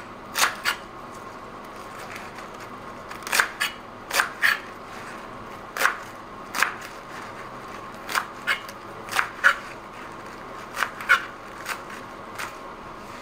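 Kitchen knife cutting through Swiss chard stems onto a plastic cutting board: short, sharp chops at an irregular pace, often two in quick succession, with pauses of a second or more between.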